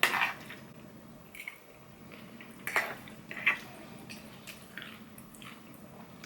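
Eating sounds: wet chewing and mouth smacks, with a handful of short, sharper clicks scattered through.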